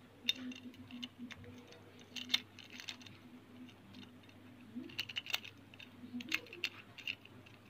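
Light clicks and taps from a plastic octopus pop-it fidget spinner being handled, coming in irregular little clusters.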